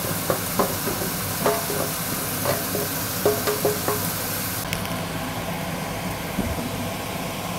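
Chopped leeks and tomatoes sizzling in oil in a stainless-steel pot, with scattered knocks and clinks as the vegetables are scraped in off a knife and stirred.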